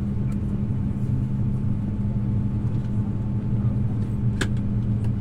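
Steady low hum of an Airbus A321's cabin air supply, heard inside the cabin while it waits at the gate, with one sharp click about four and a half seconds in.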